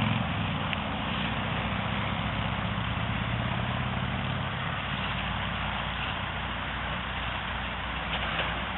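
Diesel engine of heavy construction machinery running steadily, a low even drone with no change in pitch.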